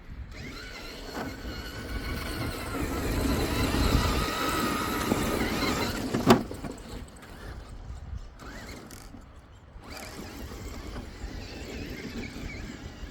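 Axial SCX6 Honcho RC car's electric motor and gears whining as it drives, growing louder over the first few seconds and then easing, with a single sharp knock about six seconds in.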